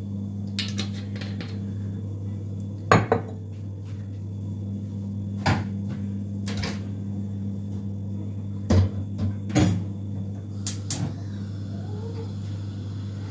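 Scattered knocks and clinks of a pot and kitchen things being handled, about a dozen separate sharp knocks, over a steady low hum.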